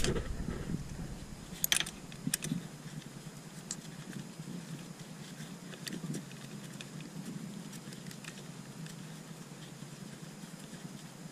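Faint handling noises as gloved hands seat the oil filter cover on a Honda TRX 125 quad's engine, with two light clicks about two seconds in.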